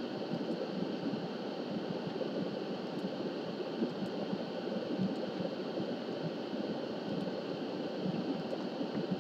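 Steady background hiss and rumble with no clear source, and a few faint clicks scattered through it.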